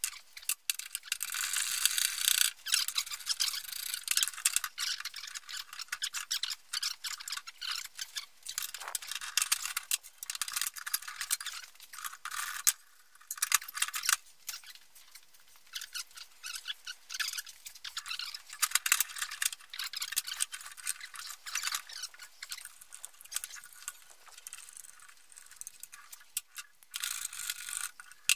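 Rapid clicking of a socket ratchet undoing the belt-guard and retainer bolts on a steel mower deck, with small metal parts rattling. It comes in repeated bursts with short pauses.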